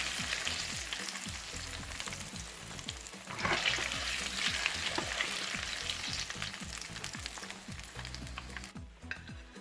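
Kelewele (spiced ripe plantain cubes) sizzling as they fry in hot oil. The sizzle grows louder about three and a half seconds in and fades out shortly before the end.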